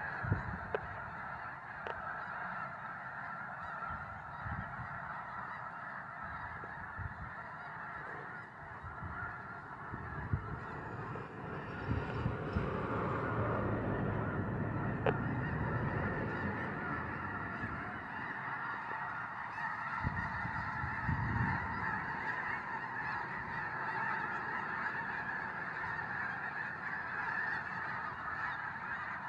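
A huge flock of snow geese calling all at once: a dense, continuous din of overlapping honks that swells a little about twelve seconds in.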